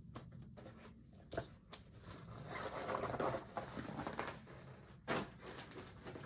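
Rustling and crinkling of a vinyl project bag and fabric being handled, strongest about halfway through, with a couple of short knocks, the last about five seconds in.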